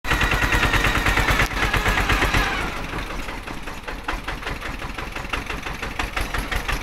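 Vehicle engine labouring up a dirt hill, heard from on board: an even chugging beat of about seven or eight pulses a second. About two and a half seconds in it turns a little quieter and duller, and the beat carries on.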